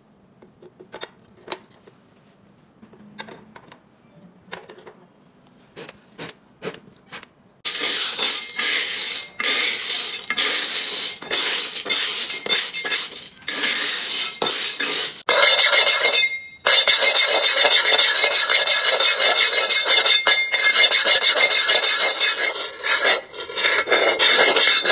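A metal spatula stirring and scraping screws and iron nails around a stone-finish nonstick frying pan: loud, continuous metallic scraping and rattling with a few short breaks, starting about eight seconds in after a few faint light taps.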